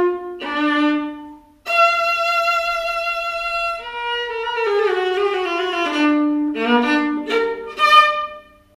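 Solo viola played with the bow: a short phrase, a brief break about a second and a half in, then a long held note with vibrato, a falling run of notes and a few shorter notes that die away near the end.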